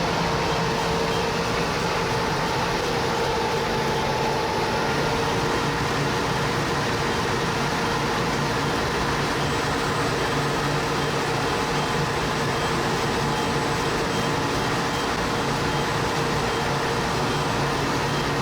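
Steady machine noise, a continuous whir with a few constant humming tones that holds level throughout.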